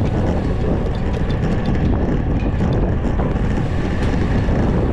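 Wind buffeting the microphone of a handlebar-mounted camera on a moving road bicycle: a steady, low rushing noise.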